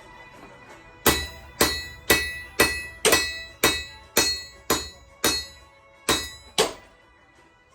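Forging hammer striking steel on an anvil, about a dozen blows at roughly two a second, each with a bright metallic ring. The blows begin about a second in and stop near the end.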